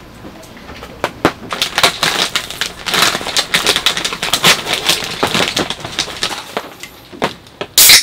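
A plastic snack bag crinkling and rustling as hands open it and dig into it, a dense run of crackles. Near the end comes a loud sudden crack and hiss: the pull tab of a beer can being opened.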